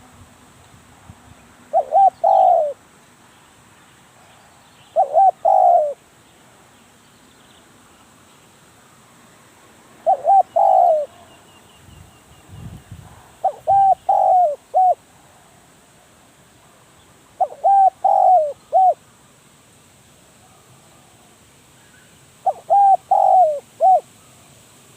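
Spotted dove cooing: six short phrases of three or four notes each, repeated every few seconds. A brief low thud comes about halfway through.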